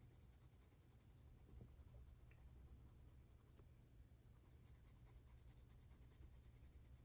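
Faint scratching of a colored pencil shading on paper with light pressure, over a low steady hum.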